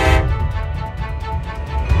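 A train horn's steady chord cuts off just after the start, leaving music over a low, continuous train rumble.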